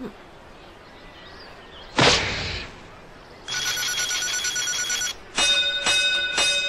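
Cartoon sound effects of a punch-strength measuring machine. A single punch lands on the pad, then the machine gives an electronic ringing trill for about a second and a half. Three bell-like dings follow as the score comes up.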